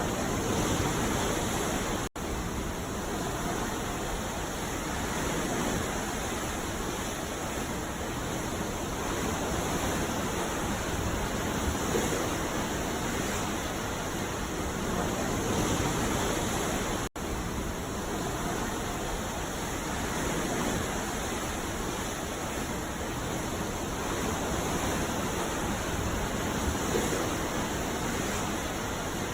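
Ocean surf washing on a beach: a steady hiss of waves that swells and eases slowly. It drops out to silence for an instant twice, about two seconds in and again about seventeen seconds in.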